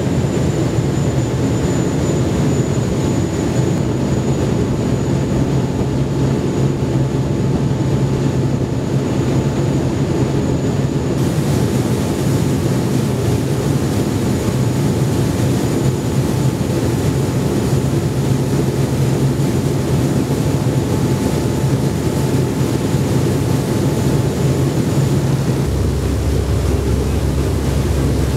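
A cruise boat's engines running steadily at speed, a deep even hum under the rush of churning wake water. The hiss of water and wind gets louder about a third of the way in.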